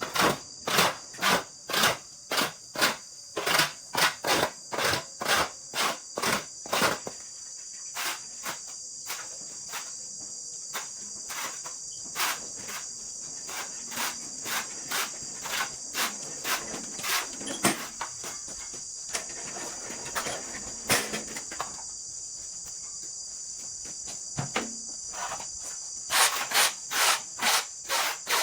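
Hand saw cutting wood in an even back-and-forth rhythm of about two strokes a second. The strokes are loud for the first several seconds, fainter and more scattered in the middle, and loud again near the end. Insects chirp in a steady high drone throughout.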